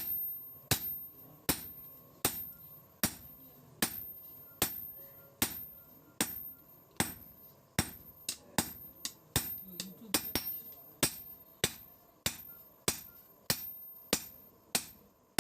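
Hand hammer striking steel on an anvil in a steady rhythm, forging a billhook blade. The blows come about one every three-quarters of a second, each with a short metallic ring, and a couple of lighter taps fall in between.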